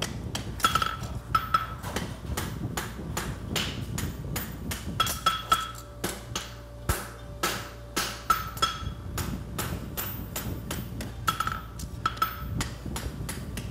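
Farrier's hand hammer striking a red-hot steel horseshoe on an anvil in a steady run of blows, about two a second, each with a short metallic ring, as the heel of the shoe is forged.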